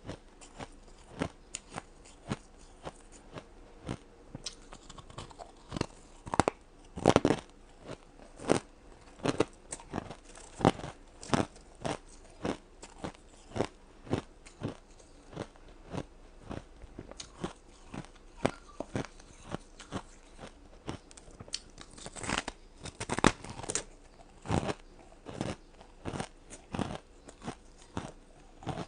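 A person biting and chewing ice cubes close to the microphone: a run of sharp, irregular crunches and cracks, one to three a second, with louder clusters of bites now and then.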